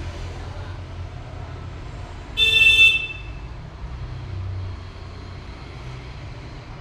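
A vehicle horn toots once, briefly, a couple of seconds in, over a steady low rumble.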